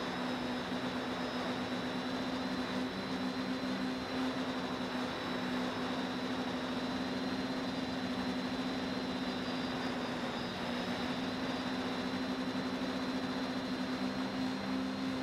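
Quadcopter's electric motors and propellers humming steadily, heard from the camera on the drone itself, as two close steady tones over a rushing hiss. The tones waver slightly in pitch about ten seconds in as the motors adjust.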